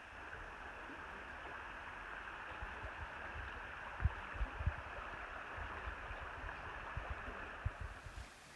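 Steady rush of a river flowing over a stony bed, with a few low thumps about four seconds in and again near the end.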